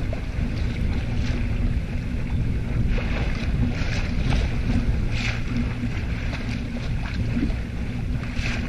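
Water rushing and splashing along the hull of a Bristol Channel Cutter sailing yacht under way, with separate splashes about three, four, five and eight and a half seconds in. Wind buffets the microphone with a steady low rumble.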